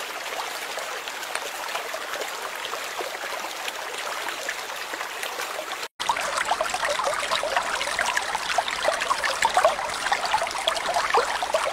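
Running water trickling and burbling like a small stream, steady throughout. It is cut off briefly about six seconds in, and after that it comes back a little louder and more bubbly.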